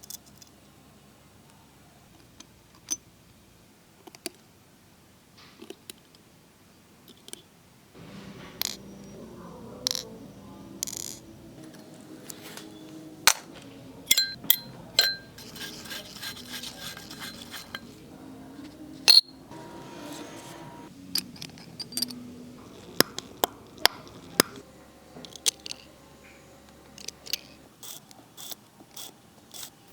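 Scattered sharp metal clicks and small taps of watchmaker's tweezers and screwdriver on a Cartier calibre 1904 automatic movement as it is taken apart, some close together, one louder click near the middle.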